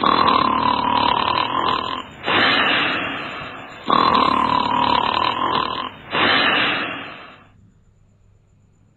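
Loud snoring, two breaths: each a long snore with a steady whistling tone that sags slightly in pitch, followed by a rough breathy rush. It stops abruptly about seven and a half seconds in.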